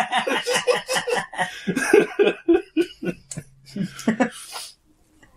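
People laughing hard in a run of short bursts that die away about four and a half seconds in.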